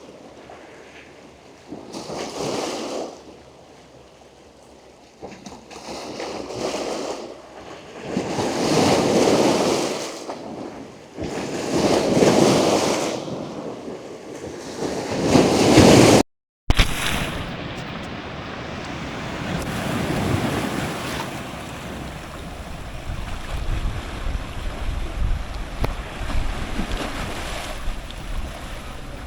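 Ocean surf breaking on rocks close to the microphone, surges of rushing water arriving every few seconds and building in loudness, the loudest about 16 seconds in. The sound then cuts out for a moment and comes back as a steadier, duller rush with a low rumble, the kind of change the recordist puts down to seawater flooding the wireless microphone receiver.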